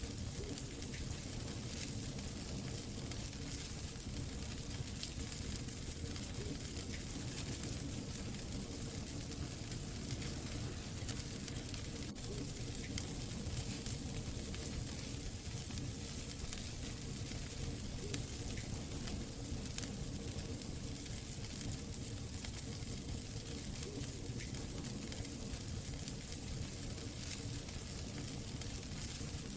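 Wood fire burning in a fireplace: a steady hiss full of small crackles, with two louder pops about two-thirds of the way through.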